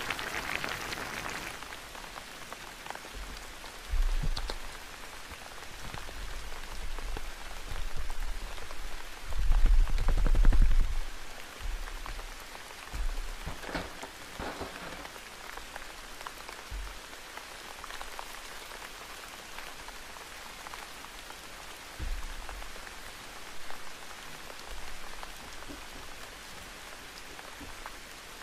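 Steady rain hiss. Over it come low thumps and brief rustles from paper cutouts being handled; the loudest thumps fall about ten seconds in.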